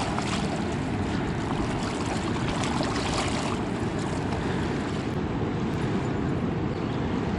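Steady rushing of the Niagara River's current at the Whirlpool, an even noise with no breaks.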